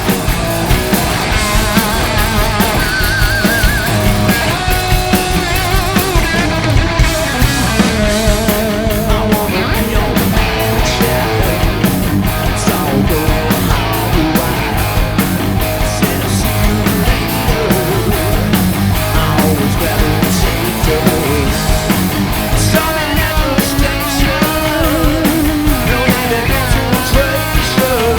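Hard rock band playing live: distorted electric guitars holding wavering, vibrato notes over bass and drums with steady cymbal hits.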